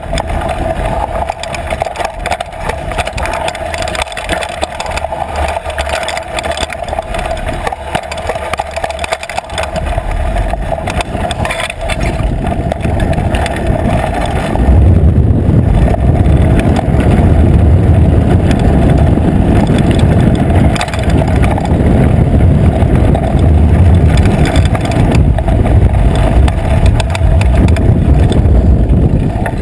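Trek Fuel EX8 mountain bike riding fast over a dry dirt trail: tyre noise and a constant rattle of the bike over bumps, under wind rumble on the microphone. About halfway through the wind rumble grows much louder and deeper and stays that way.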